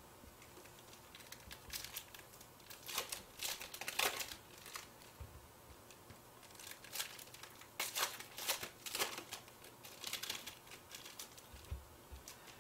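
Foil trading-card pack wrappers crinkling as the packs are torn open and handled, in short scattered bursts of crackling.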